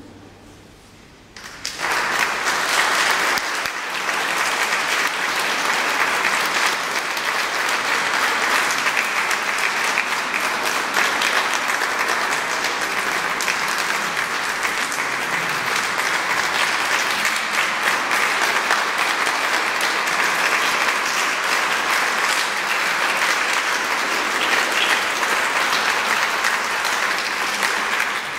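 Concert audience applauding. The applause starts about a second and a half in, holds steady, and is cut off suddenly at the end.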